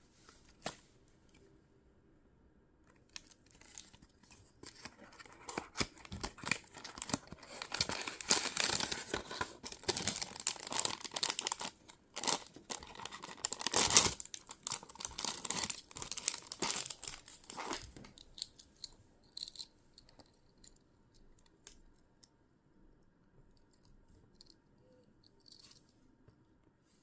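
Blind box packaging being torn open and crinkled by hand, loudest in the middle with a sharp rip near the midpoint, then only light scattered taps and handling clicks.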